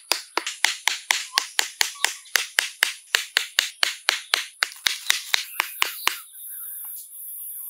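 A wooden club knocking wooden stakes into packed earth, about four even strikes a second. The strikes stop about six seconds in, leaving a steady high hiss.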